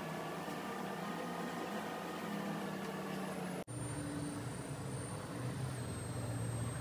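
Steady low hum with a few faint held tones. About three and a half seconds in it breaks off abruptly and a slightly different steady hum takes over, with a thin high whine above it.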